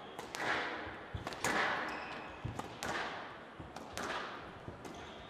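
Squash rally: rackets striking the ball and the ball smacking off the walls of a glass show court, a series of sharp cracks every half second to a second, each ringing on in the hall.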